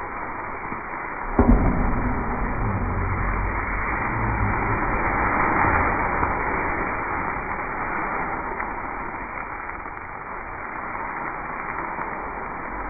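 Wok of vegetables sizzling and hissing over a high gas burner as it is tossed. A sudden loud burst comes about a second and a half in, and the hiss swells near the middle as flames flare up from the wok.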